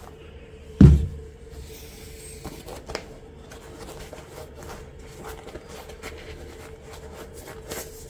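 Sports shoes being handled on a desk: one heavy thump about a second in, then faint rustling and a few light taps.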